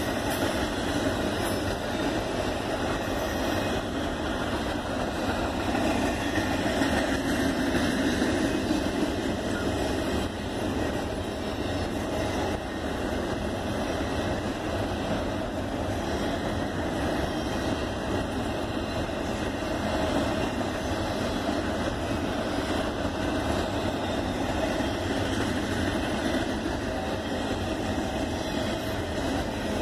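Norfolk Southern intermodal freight train rolling past, its container-laden cars making a steady noise of wheels on the rails.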